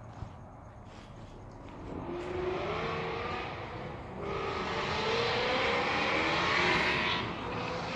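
A motor vehicle going by, growing louder from about two seconds in with a rising engine note, loudest just before the end and then easing off.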